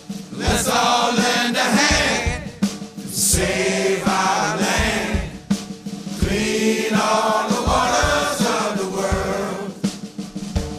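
Song with a group of voices singing a chant-like chorus in phrases over a drum-kit beat.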